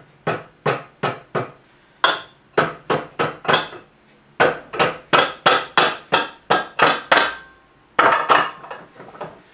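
Rubber mallet tapping the aluminum top housing of a Bridgeport mill's J-head to knock it loose from its locator pins once the bolts are out. About two dozen light, sharp taps come in quick runs of several, roughly three a second, with short pauses between the runs.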